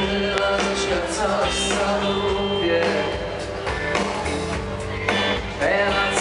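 Live band music from an open-air concert stage, loud and continuous, with a singer's voice over the band.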